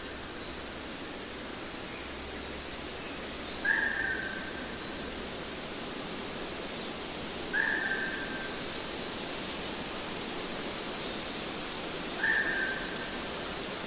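Steady hiss of outdoor background noise, with a bird giving a short falling call about every four seconds and fainter high chirps in between.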